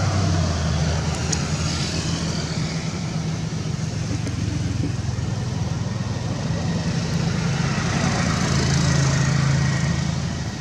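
A steady low motor hum with a rushing hiss over it, swelling slightly about eight seconds in.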